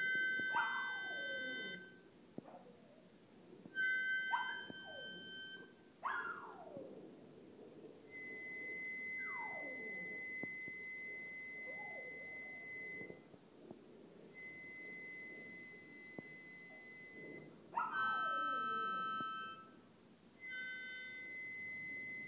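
A harmonica playing long held notes while a small dog howls along, each howl sliding down in pitch, about eight times through the stretch.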